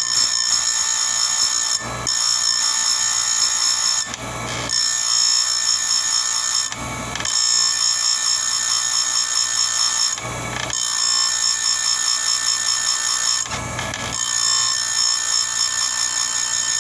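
Chainsaw chain grinder's wheel whining steadily as it grinds the cutters of a chain, one tooth after another. The whine is broken briefly about every three seconds, five times, as the wheel is lifted off one tooth and the chain is moved to the next.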